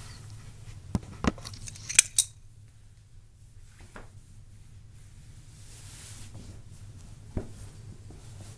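Handling clicks and knocks as a phone is set down and settled on a tiled floor: a quick run of sharp clicks in the first two and a half seconds, the loudest about two seconds in, then two fainter taps, over a low steady hum.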